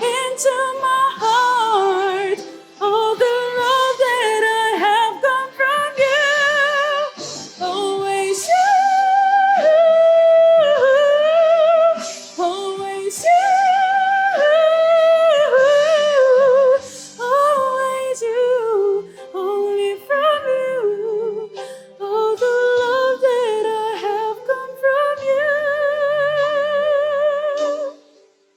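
A woman singing a slow worship song, holding long notes with vibrato. The song ends on a long held note near the end.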